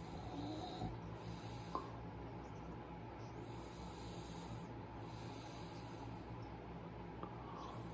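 A sleeper snoring: slow, regular breaths with a soft rasping hiss, one about every two seconds.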